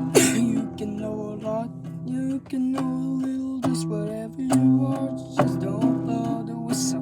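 Instrumental music: acoustic guitar strumming chords, with a melody that slides between notes over them.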